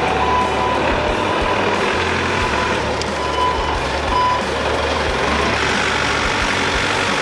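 Clark forklift engine running steadily with a low rumble, its warning beeper giving short high beeps now and then.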